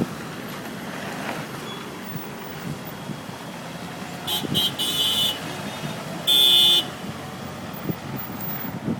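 Street traffic noise, with a car horn giving a few short toots about four seconds in and one longer blast a little over six seconds in.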